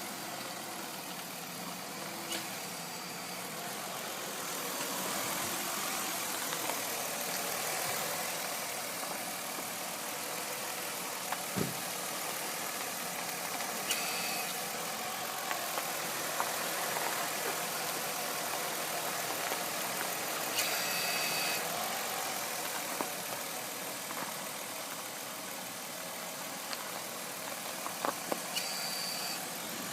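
Car engine idling while the steering is worked to full lock, with three short high-pitched squeals and a few clicks from the front end: the strange full-lock noise of a worn front wheel and axle assembly.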